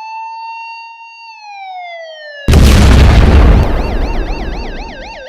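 Electronic siren sound effect: a clean wailing tone that rises, holds and slides down, then a loud explosion blast about halfway through that dies away over a couple of seconds, with a fast warbling siren, about four wobbles a second, starting under its tail.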